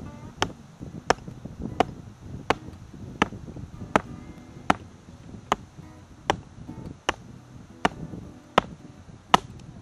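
Steady chopping into a wooden branch with a blade: about thirteen sharp strikes, one every three-quarters of a second, some with a short ringing note. Light guitar music plays underneath.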